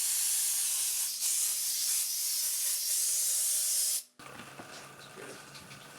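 A steady spraying hiss, strongest in the high range, that cuts off suddenly about four seconds in, leaving only faint room sound.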